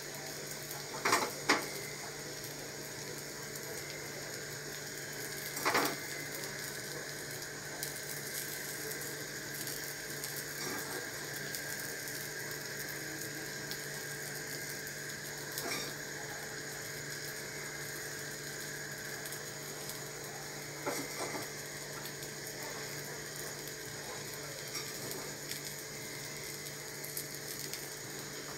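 Pizza cooking in a frying pan on the stove: a steady hum with a faint sizzle, broken by a few short clicks and taps as pieces of chicken are placed on the topping.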